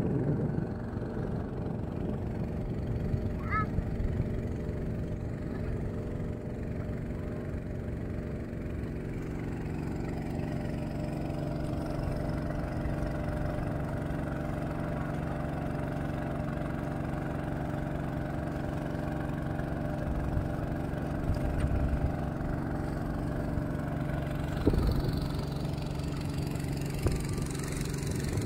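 Small river-crossing boat's engine running steadily at an even speed.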